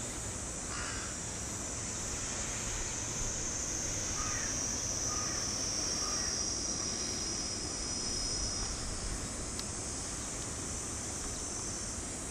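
Crows cawing a few times about four to six seconds in, over a steady high-pitched hiss and a low outdoor rumble.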